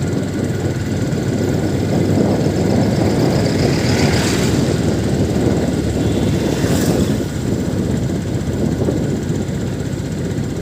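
Steady engine and road rumble of a moving vehicle, with two brief hisses, about four and seven seconds in.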